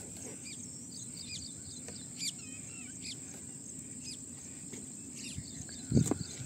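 Steady high-pitched drone of crickets with scattered short bird chirps over a low outdoor background. A single thump stands out near the end.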